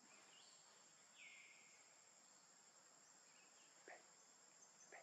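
Faint insects buzzing steadily in a high, even drone. A short high call comes about a second in, and two brief faint sounds come near the end.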